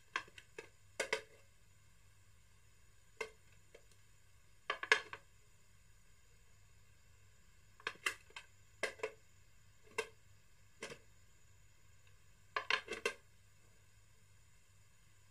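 Small red metal tin box being lifted, shifted and set back down on a glass-topped digital bathroom scale: short clinks and knocks in scattered clusters, the loudest about five seconds in.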